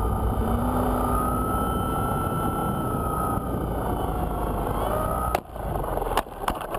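Onboard sound of a Funcopter RC helicopter in flight: a steady motor and rotor whine over rushing wind noise. Near the end there is a sudden drop and a few sharp knocks as it comes down onto gravel.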